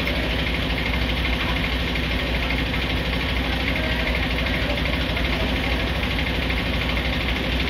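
Heavy truck diesel engine idling steadily, a constant low rumble.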